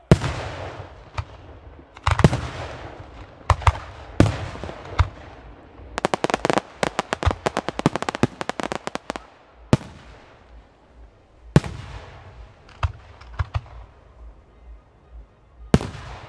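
Weco aerial firework shells bursting in a string of loud bangs, each trailing off in a long rolling echo. About six seconds in, a rapid string of sharp reports runs for about three seconds before single bangs resume.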